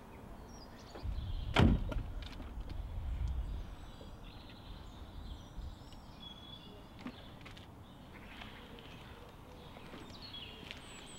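A car door being shut with a single thump about one and a half seconds in, with a low rumble around it, then a quiet outdoor background with a few faint bird chirps near the end.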